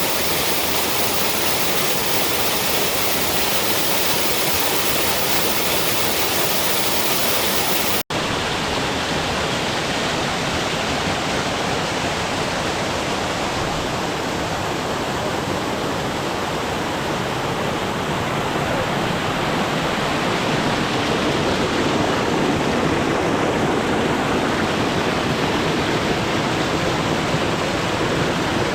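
Waterfall: a steady, dense rush of falling water. It drops out for an instant about eight seconds in, then carries on sounding slightly duller.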